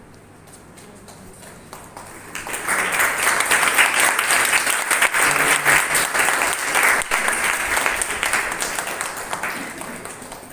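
Audience applauding, starting about two and a half seconds in and dying away near the end.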